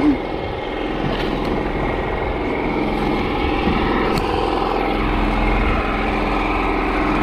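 A small fishing boat's engine running steadily.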